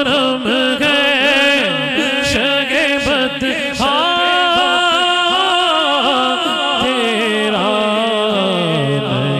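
A man singing a naat into a microphone, an unaccompanied, ornamented vocal line with long held notes in the middle, amplified through a PA. Beneath it runs a sustained lower drone that steps down in pitch near the end.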